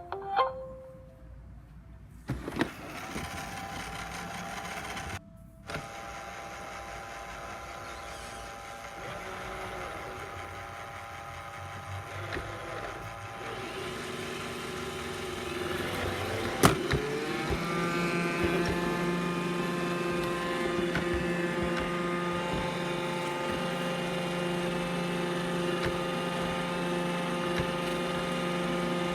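Robot vacuum running, its motors giving a steady hum with several held whining tones. A sharp knock comes about 17 seconds in, after which the hum runs steady and a little louder.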